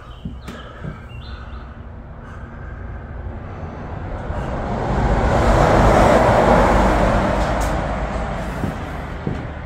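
A passing vehicle: a rumbling noise swells to its loudest about six seconds in, then fades away.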